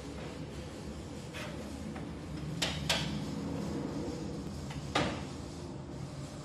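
Magnetic sheet metal brake being handled: sharp clicks and knocks from its clamp bar and controls, two close together a little before three seconds in and a louder one about five seconds in, over a steady low hum.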